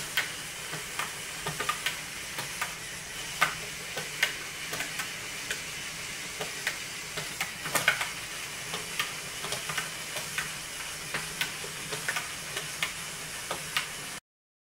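Small electric motor and plastic LEGO Technic gears of a walking robot whirring steadily, with irregular clicks and taps from its geared legs, about one or two a second; it cuts off suddenly near the end.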